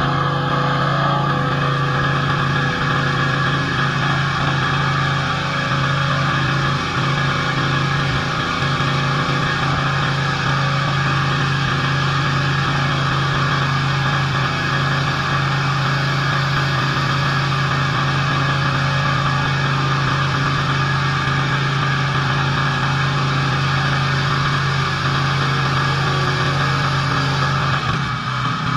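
Engine-driven pressure washer running steadily, with the hiss of its high-pressure water spray.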